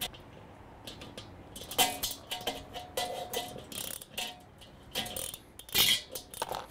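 Ratcheting box-end wrench clicking in short runs as a tight nut is turned on a bolt through the grill's enamelled steel bowl, with faint metallic ringing from the steel.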